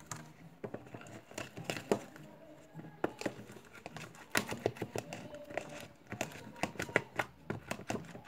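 Homemade glue-and-activator slime being stirred in a container: a quick, irregular run of sticky clicks and crackles as the mixture thickens, still sticking to the sides.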